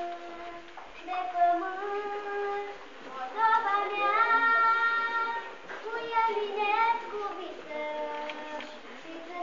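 Children singing a slow melody in long held notes that slide from one pitch to the next.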